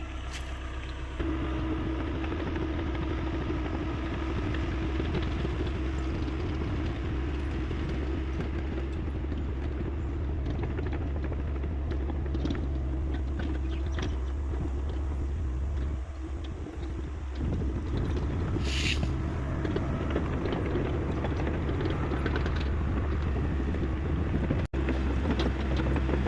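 Hyundai 85A excavator's diesel engine running steadily under working load. It gets louder about a second in, dips briefly about two-thirds of the way through, and a short hiss follows.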